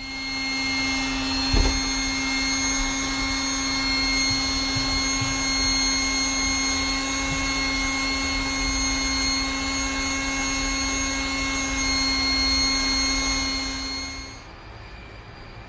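Handheld electric blower running steadily with a constant motor whine and rush of air, blowing into a charcoal fire to bring the coals up to heat. A single knock about a second and a half in; the blower cuts off about a second before the end.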